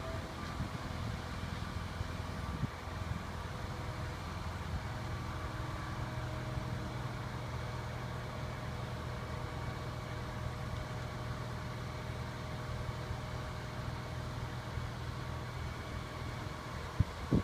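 A large engine running steadily, with a couple of sharp knocks near the end.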